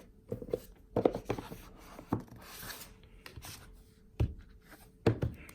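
Boxes and packaging being handled by hand: soft rubbing and scraping with a few light knocks scattered through.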